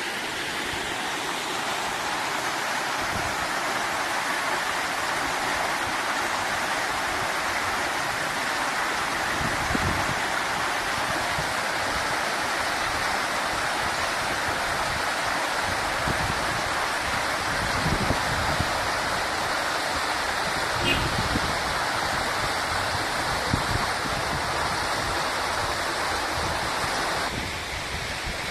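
Waterfall rushing steadily, an even roar of falling water, with a few low thumps mixed in; the rush drops in the middle range shortly before the end.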